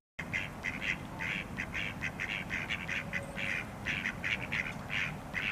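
Khaki Campbell duck quacking in a quick, steady run of short calls, about three to four a second.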